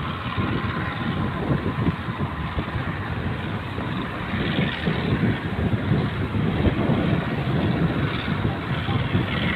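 Steady rushing noise of wind and sea waves around a small boat in rough water, with a motor running underneath.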